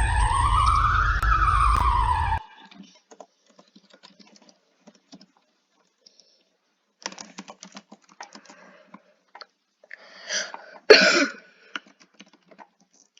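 Emergency alert siren wailing, its pitch sweeping up and down, cutting off abruptly about two seconds in. Then mostly quiet, with scattered faint clicks and taps and a sharper knock and clatter near eleven seconds.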